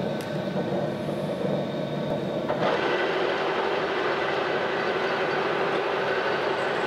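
A metal lathe runs with a steady machine noise. About two and a half seconds in, its carbide-insert tool starts turning down a brass needle-valve blank, and a denser, higher cutting noise holds steadily over the running lathe.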